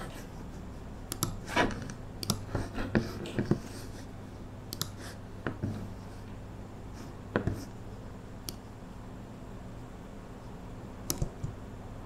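Scattered clicks, taps and short scrapes of mouse and keyboard handling at a computer desk. They are busiest a second or so in, followed by a few isolated clicks, over a steady low hum.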